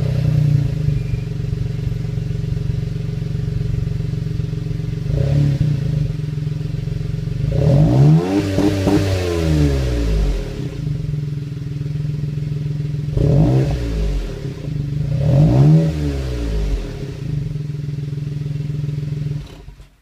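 Car engine heard through an aftermarket muffler's dual oval tailpipes, with no silencer insert fitted. It idles steadily and is blipped briefly about five seconds in, then revved up and back down around eight to ten seconds in. It is blipped twice more and switched off just before the end.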